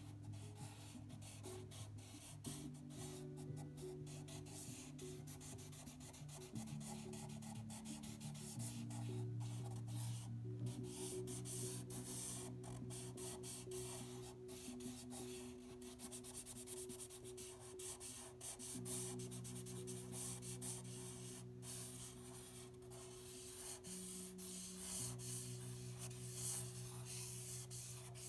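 Felt tip of a Sharpie marker rubbing across paper in irregular strokes as a line drawing is made, over soft background music of slow held chords that change every few seconds.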